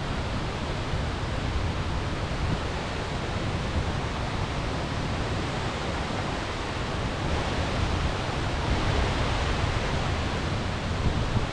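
Steady rushing of a tall single-drop waterfall, an even hiss with no breaks.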